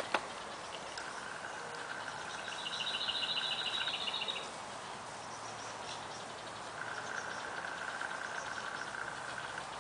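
Outdoor garden ambience of small animal trills: a steady, finely pulsed trill that stops and starts, and a louder, higher trill for about two seconds near the middle. A single sharp click comes just after the start.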